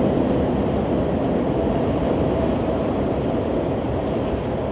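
Freight train passing on the CP rail corridor: a steady rumble of the moving train.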